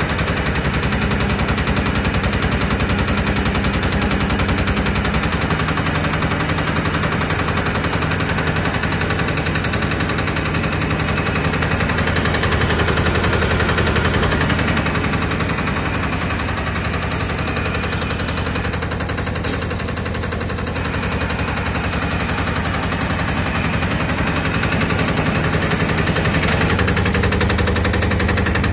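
Small diesel engine of a cable-winch yarder running steadily with a rapid, even knocking beat. It is driving the wire-rope winch drum.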